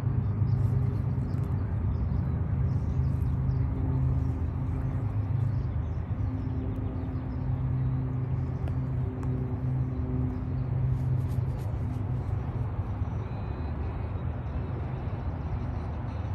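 Steady low engine hum with a constant pitch, with faint scattered high ticks over it.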